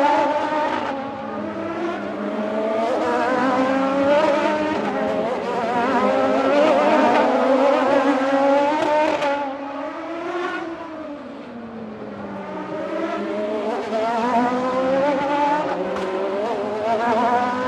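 Grand Prix single-seater race car engine running at high revs, its pitch climbing and dropping as it accelerates and changes gear. Around ten to twelve seconds in the sound fades and the pitch falls as the revs drop, then it builds and climbs again.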